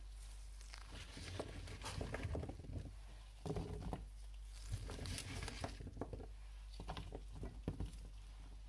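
Handfuls of chopped zucchini, bell pepper and mushroom pieces dropped into a frying pan: soft, irregular pattering as the pieces land, in several bunches a second or two apart, with the rustle of gloved hands.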